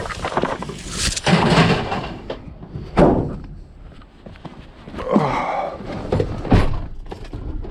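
Scrap metal being grabbed and thrown into a van: scraping and rattling, with two sharp bangs, one about three seconds in and one near the end.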